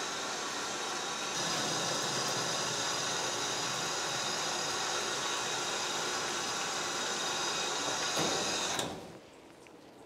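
Water rushing from a hose nozzle into a plastic tub of shampoo suds, a steady spray that stops abruptly near the end.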